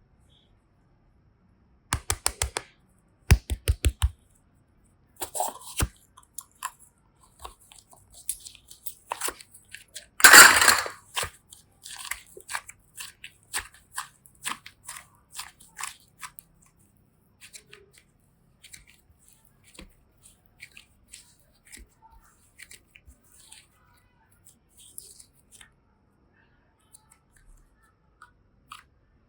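Hands handling small craft materials: quick runs of clicks, then a louder crunchy crackle about ten seconds in, followed by sparse faint ticks and taps.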